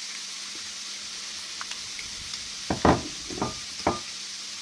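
A plastic spoon stirring thick mayonnaise-based sauce in a ceramic bowl, with three or four soft knocks of spoon and bowl in the second half as the bowl comes to rest on the countertop. Chicken frying in oil sizzles faintly and steadily in the background.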